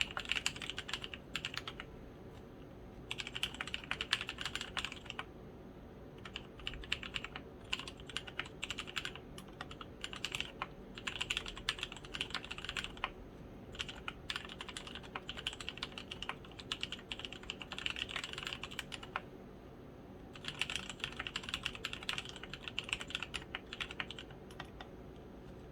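Typing on a custom 60% mechanical keyboard with lubed Kailh Polia tactile switches and pudding keycaps, built on a copper plate in a foam-damped acrylic case. Rapid keystrokes come in runs of a few seconds with short pauses between them.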